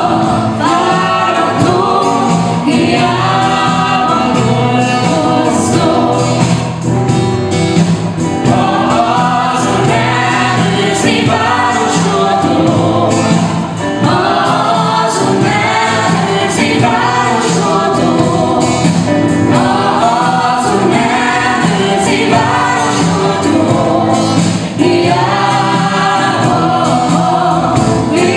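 Mixed vocal group of men and women singing a Christian worship song together into microphones, with live instrumental accompaniment keeping a steady beat.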